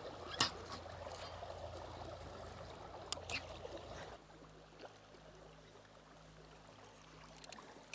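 Faint water trickling and splashing, with a few light knocks, that dies down about four seconds in.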